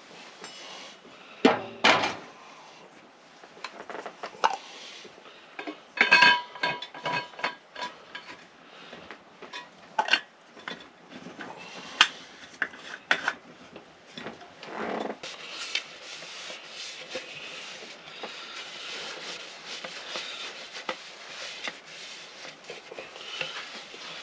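Camp cookware and dishes being handled on a camp stove: metal pots, a percolator, a plate and utensils clinking and knocking at irregular intervals, one knock about six seconds in ringing briefly.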